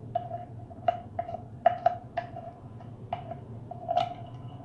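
Small metallic clicks and ticks, about nine at irregular intervals, as the fluid-needle adjustment knob is unscrewed by hand from the back of an aluminium F75 gravity-feed paint spray gun.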